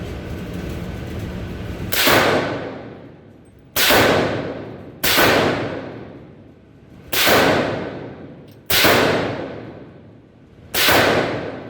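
Suppressed Bushmaster ACR rifle in .300 Blackout fired six times at uneven intervals. Each shot has a sharp crack followed by a long echo that fades over a second or more.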